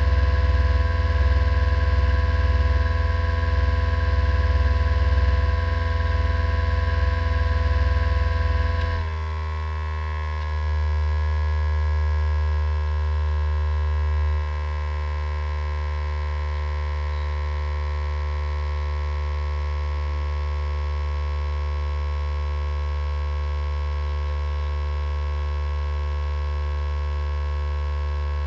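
Radical race car's engine idling while the car stands still, then switched off about nine seconds in; a steady electrical hum runs on afterwards, its tones sagging slightly in pitch, with a small drop in level at about fourteen seconds.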